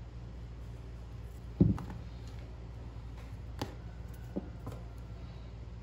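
Quiet handling of a silicone mould and sugar paste: one soft thump about one and a half seconds in, then a few light taps, over a steady low hum.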